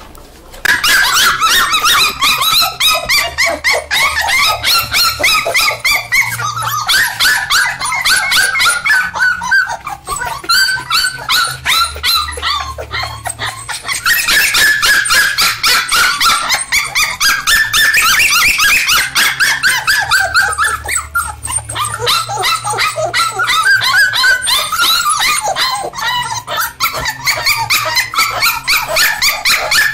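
A litter of five-week-old standard poodle puppies yipping and barking together, a dense chorus of short, high calls that bend in pitch and starts about half a second in.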